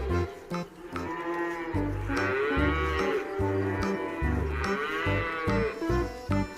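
Cattle mooing: long calls that rise and then fall in pitch, heard a few times, over background music with a steady bass beat.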